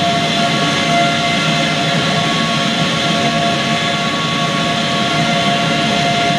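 General Electric GE90-115 turbofan on a Boeing 777-300 running at high power in a ground test run after maintenance. A loud, steady roar with several steady whining tones over it.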